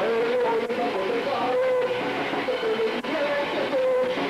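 Punk band playing live: loud, dense electric guitar with drum hits, a continuous wash of music.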